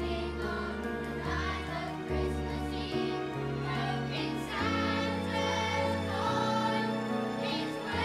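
Children's choir singing a song over an instrumental accompaniment with a deep bass line.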